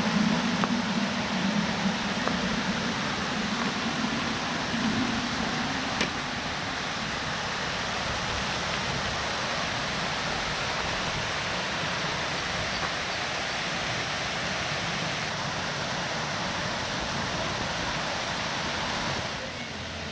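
Fountain jets splashing in a park: a steady hiss of falling water, with a low hum in the first five seconds that then fades out.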